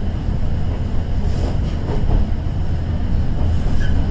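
Cabin sound of a KiHa 110 series diesel railcar: a steady low rumble of engine and running gear heard from inside the passenger car.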